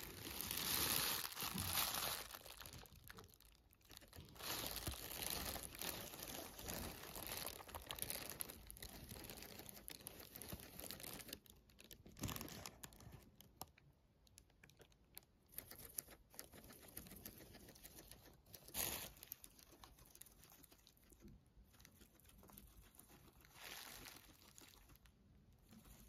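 A thin plastic bag crinkling and rustling in irregular bursts as a guinea pig noses through the greens inside it, with the crunch of its chewing. The rustling is loudest in the first two seconds.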